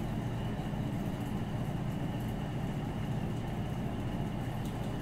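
Steady low background hum with no distinct events, like a motor or fan running in the room.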